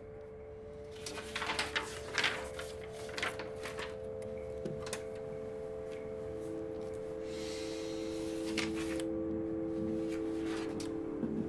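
A steady hum runs throughout, with a second, lower tone joining about halfway. Over it come scattered sharp clicks and knocks, most in the first five seconds, and a soft rubbing swish with a few more clicks later on, like darkroom equipment being handled.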